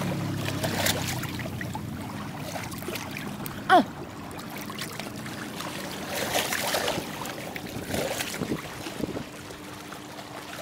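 Sea water lapping and trickling among seawall riprap rocks, with scattered clicks and knocks of footsteps on the rocks. About four seconds in there is one short, loud cry that falls in pitch.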